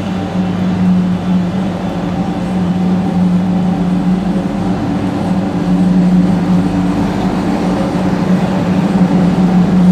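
A loud, steady mechanical hum with one low droning tone and its overtones, unchanging throughout.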